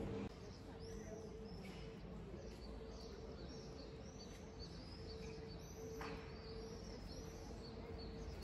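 Small birds chirping: many short, high chirps repeating over faint outdoor background noise. Music cuts off just after the start.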